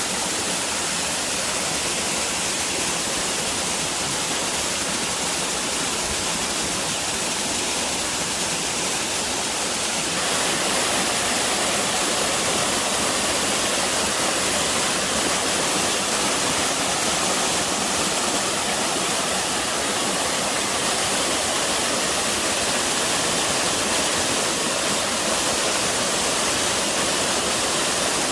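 Mountain-valley waterfall, the upper tiers of Bokgye Falls, pouring steadily in a continuous rush of falling and splashing water. About ten seconds in it becomes slightly louder and fuller.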